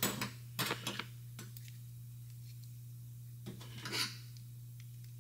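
Metal valve-spring shims clinking against each other as they are picked through by hand: a few light clinks about a second in and another cluster near four seconds, over a steady low hum.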